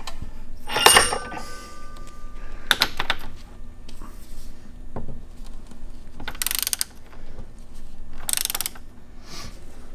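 Ratchet wrench clicking in short spurts as a freshly broken-loose nut on a Showa motorcycle fork is run off, with a ringing metal clank about a second in.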